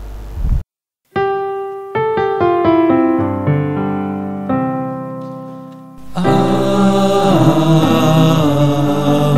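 Piano playing a slow run of single notes after a short pause, each note struck and left to ring and fade. About six seconds in, a fuller, louder musical arrangement comes in over it.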